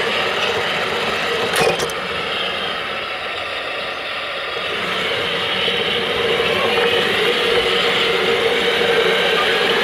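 Battery-powered electric motor and gearing of a Playmobil radio-controlled freight train locomotive running along plastic track, a steady whirr, with one sharp click about a second and a half in.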